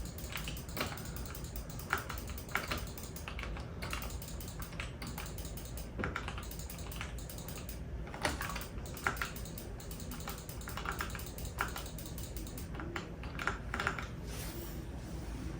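Typing on a computer keyboard: a steady run of key clicks, irregular in rhythm, with louder keystrokes every second or so.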